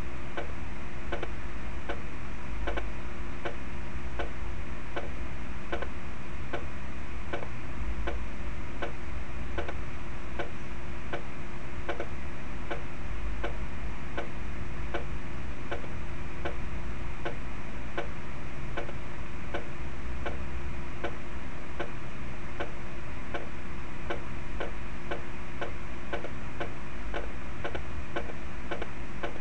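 Snare drum strokes played back from a notation score: light, evenly spaced single strokes of a stick-control sticking exercise, heard as a steady ticking pulse over a constant hum.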